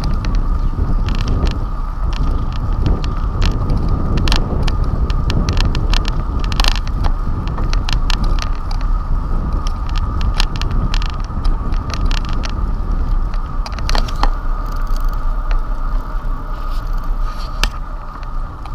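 Bicycle riding on a rough paved road, heard from a handlebar-mounted camera: steady wind and road rumble, frequent short rattles and clicks from the bike over cracks and bumps, and a steady high whine.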